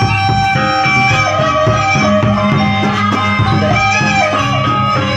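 A gendang beleq ensemble playing: a bamboo suling flute carries a flowing melody of held notes over large double-headed drums beaten in a steady rhythm.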